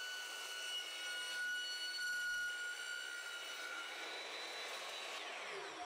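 Evolution EVOMAX metal-cutting chop saw with a ceramic carbide blade cutting through 16-gauge square steel tubing, a steady high whine with cutting noise. About five seconds in, the whine falls in pitch as the motor winds down under its electronic brake.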